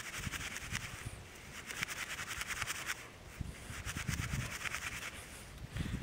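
A knife scraping and shaving wood for tinder in repeated strokes, in bouts of about a second with short pauses between.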